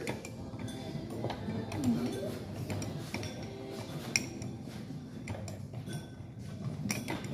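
Spoon stirring liquid wax in a glass candle jar, clinking repeatedly against the glass as it goes back and forth around the wick, with one sharper clink about four seconds in.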